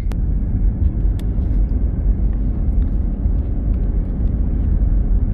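Steady low road rumble of a moving car heard from inside the cabin, tyre and engine noise, with a faint click at the start and another about a second in.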